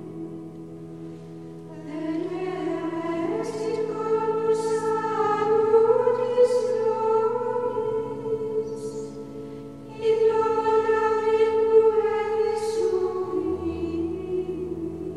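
Background music: a choir singing slow, sustained notes that swell twice, with a low bass note coming in near the end.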